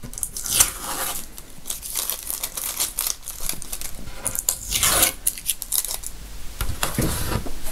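Adhesive tape being peeled off the edge of a tray: a string of irregular short rips and crinkles.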